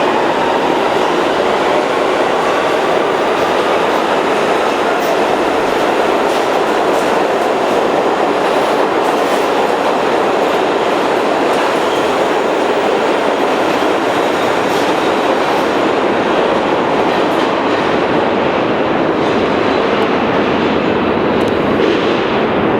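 New York City subway train running through a station: a loud, steady rumble of wheels on rail with clicking wheel clatter. Near the start a faint whine rises in pitch.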